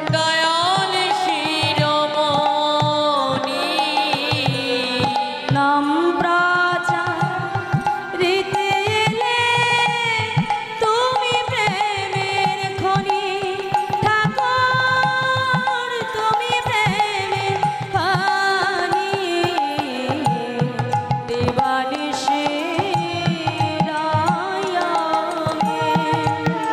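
Bengali padabali kirtan music: a sung devotional melody with held, wavering notes over steady hand-drum strokes.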